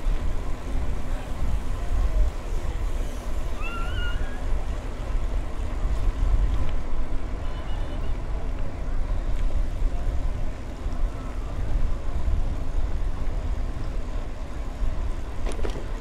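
Wind rushing over the microphone and bicycle tyres rolling on pavement while riding, a steady low rumble. A short rising chirp sounds about four seconds in.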